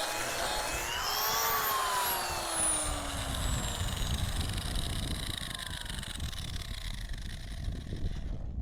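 Electric grinder used to clean rust and scale off steel stock, switched off about a second in and spinning down, its whine falling slowly in pitch and fading.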